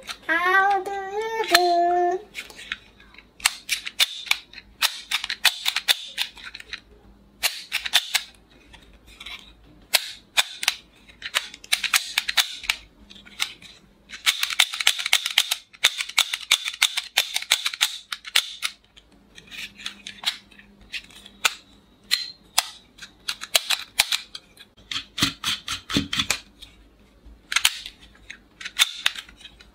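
Plastic toy revolver clicking as it is handled and loaded: many quick, sharp plastic clicks from its mechanism, coming in runs, with a long dense run about halfway through.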